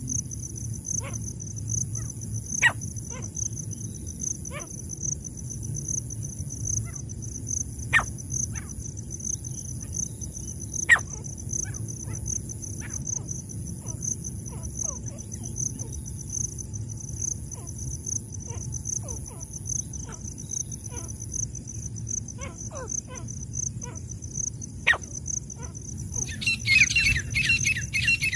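Grey francolins giving short, sharp single calls every second or so over a steady, fast-pulsing high insect trill. A couple of seconds before the end, a loud run of rapid, repeated harsh francolin calls starts.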